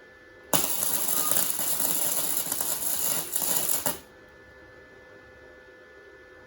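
Flux-core arc welding with a Titanium Easy-Flux 125 welder on 16-gauge mild steel: the arc crackles and sputters for about three and a half seconds, starting and stopping abruptly as the trigger is pulled and released.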